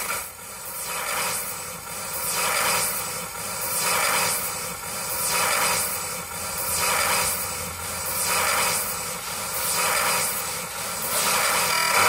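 Electronic live set playing through PA speakers: a whooshing wash of noise that swells and fades in a regular pulse about every second and a half, over faint steady tones.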